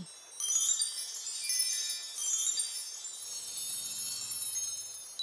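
Cartoon magic-wand sparkle effect: a bright, high, shimmering chime and tinkle that starts about half a second in and goes on as the wand writes a letter in the air.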